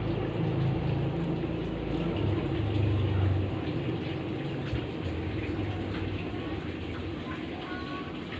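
Washing machine spin-dryer motor running with a low hum. The hum is louder for the first three seconds or so, then eases to a lower level.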